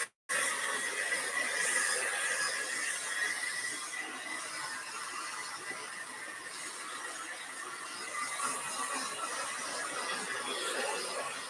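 Hand-held hair dryer running steadily with a high whine, blowing over a raccoon pelt to dry and fluff the fur. The sound cuts out for a split second just after the start.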